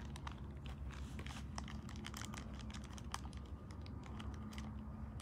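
A rapid, irregular run of light clicks and crackles over a steady low hum.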